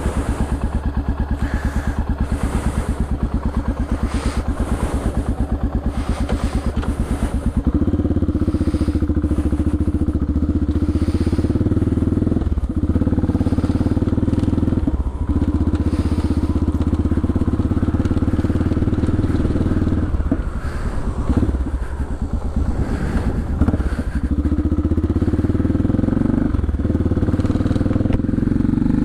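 CCM DS 644's big single-cylinder engine and exhaust, heard close to the silencer. It runs with distinct, evenly spaced thumps at first. About eight seconds in it becomes a louder, steadier drone under way, with several brief dips in between.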